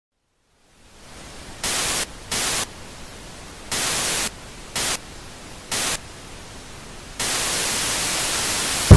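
Old television static hiss fading in, surging loud in five short bursts, then holding loud for the last couple of seconds before a sharp click, after which it cuts off.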